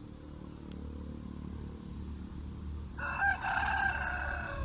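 A rooster crowing once, about three seconds in, one drawn-out call lasting over a second, over a low steady rumble.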